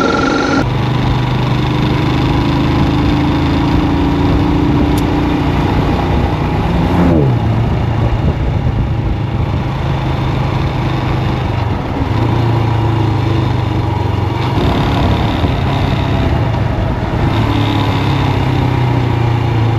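Motorcycle engine running at a steady cruising note under a rush of wind. About seven seconds in, the revs fall quickly once, then settle back to a steady note.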